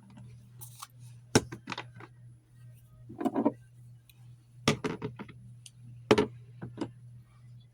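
Plastic lotion bottles being handled and set into a mini fridge: a scattered series of sharp clicks and knocks, with a short rustle about three seconds in, over a steady low hum.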